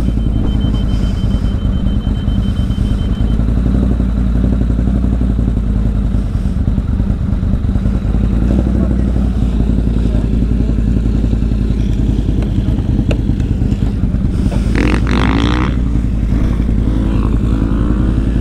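ATV engine running steadily, a constant low drone throughout. A brief higher, bending sound rises over it about fifteen seconds in.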